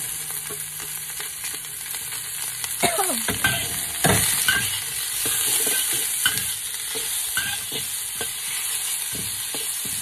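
Sliced onion and carrot sizzling in hot oil in a wok, with a metal spatula scraping and knocking against the wok at irregular moments as the vegetables are stir-fried.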